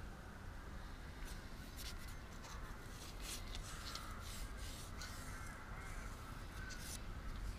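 Several harsh bird calls, like crows cawing, over a low steady rumble.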